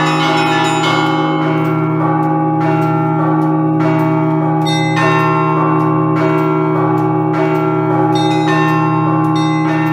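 Russian Orthodox church bells in an improvised festive peal (prazdnichny zvon). Quick, overlapping strikes of the smaller, higher bells ring over the steady hum of the deep bells.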